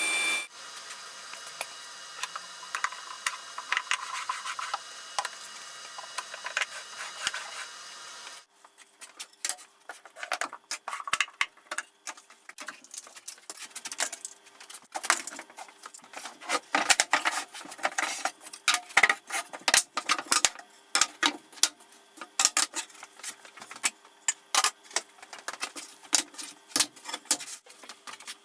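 A workshop machine runs steadily and cuts off about eight seconds in. Then come many irregular light clicks, knocks and metallic clinks of tools or parts being handled.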